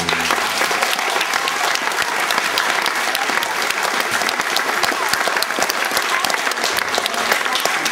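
Audience of schoolchildren applauding, a dense, steady clapping that starts all at once.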